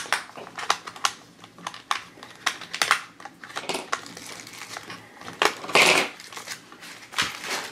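Hard plastic clicking and snapping as the little doors of a pink plastic LOL Surprise ball are pried open and handled, with a short rustle about six seconds in.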